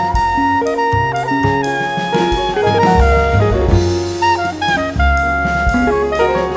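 Instrumental jazz music: a horn melody moving from note to note over bass notes and a drum kit.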